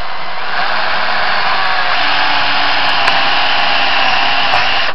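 Makita cordless drill running steadily under load as it bores a hole through a bracket: a steady motor whine over the grinding of the bit cutting.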